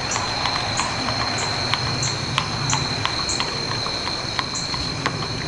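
A horse's hooves clip-clopping at a steady pace, about three strikes a second, over a steady high-pitched tone and a low rumble.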